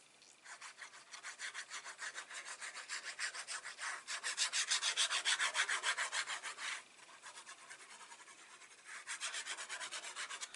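Paper being rubbed firmly down onto card in quick, even back-and-forth strokes, about seven a second, to stick a strip of designer series paper in place. The strokes pause for about two seconds near the end, then start again.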